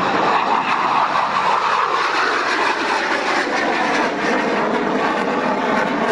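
A-4 Skyhawk jet making a low pass, its engine noise dropping steadily in pitch over the first few seconds as it goes by.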